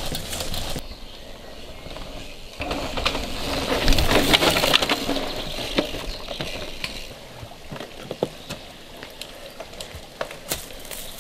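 Mountain bike tyres crackling over a forest dirt trail as a rider passes close, loudest about four seconds in, then fading into scattered sharp clicks and snaps.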